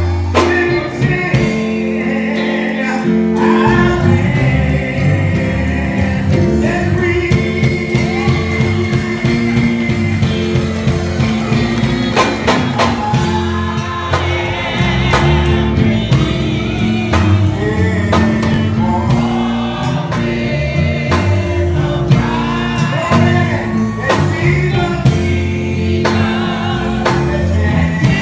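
Live gospel singing: a male soloist sings through a microphone over sustained instrumental accompaniment, with choir voices joining in.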